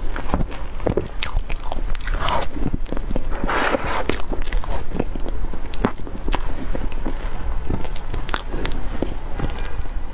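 Close-miked mouth sounds of a person eating soft whipped-cream cake: a steady run of many short wet clicks and smacks as cream and sponge are chewed.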